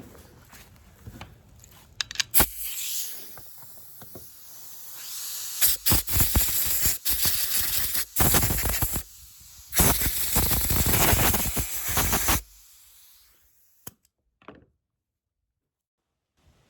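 Compressed air from an air-hose blow gun hissing in bursts as it blows dirt off a backpack blower's carburetor area: a short blast about two seconds in, then two long blasts of several seconds each, stopping about twelve seconds in.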